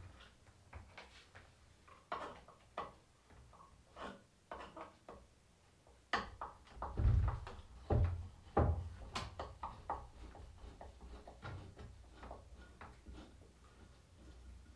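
Thin metal hand tool scraping and picking at the old worm-eaten chestnut wood of a table's frame, making irregular light clicks and scrapes. A few heavier wooden knocks come around the middle.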